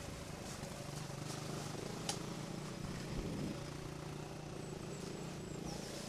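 Off-road trail motorcycle engine running steadily at low revs, its note shifting slightly about halfway through, with a sharp click about two seconds in.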